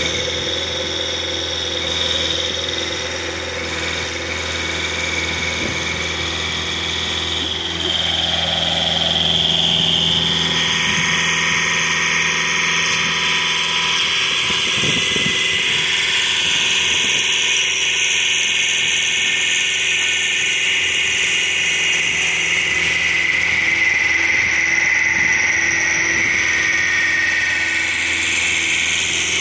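Vermeer RTX450 riding trencher's 50 hp diesel engine running steadily under throttle. About ten seconds in it gets louder and a harsher grinding is added as the digging chain is lowered and cuts into the soil, carrying on to the end.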